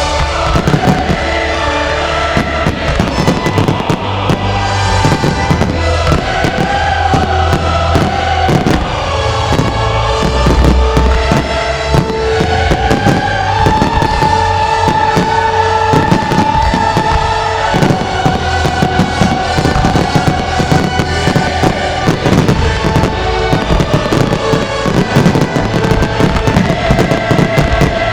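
A fireworks display firing many shells and crackling effects in quick succession, over loud show music with long held melodic notes.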